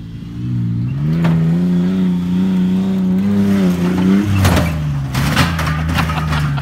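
Compact pickup truck's engine revving hard as it accelerates at a dirt jump, held at high revs, then dropping off about four seconds in while the truck is airborne. The landing follows as a burst of thuds and rattles from the body and suspension, and the engine runs on at lower revs.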